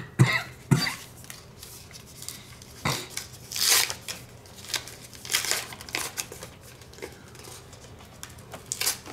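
Foil baseball-card pack being torn open and its wrapper crinkled, in scattered short rustling bursts. A few sharp taps near the start, as cards are set down on the stack.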